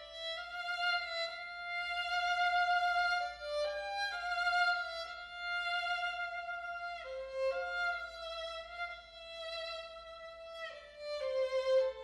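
Solo violin playing a slow melody of long held notes, one at a time, from a live stage score.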